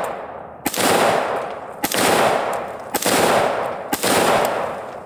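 AR-15 rifle firing 5.56 rounds in slow, aimed semi-automatic fire: four shots about a second apart, each trailing off in a long echo.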